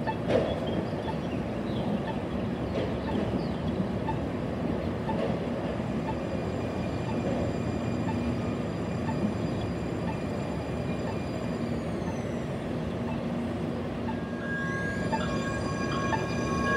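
Metro light rail train, a Siemens S70, running in on street track with a steady rumble. About twelve seconds in, a high electric whine from its traction motors glides down in pitch. Near the end a new whine rises as the train draws close.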